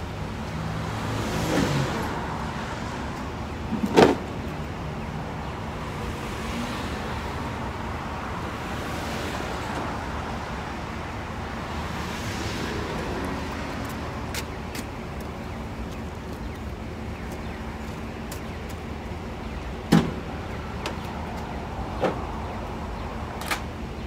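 Pickup truck engine idling steadily, with the knocks and clanks of tools and cases being set into the truck bed: a loud one about four seconds in and a few more near the end.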